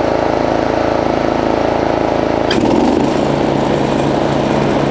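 Craftsman 30-inch rear-engine riding mower's 420cc engine running steadily. About two and a half seconds in, the blade engages with a sharp clunk; the engine note changes as it takes the cutting load and a new steady hum joins in.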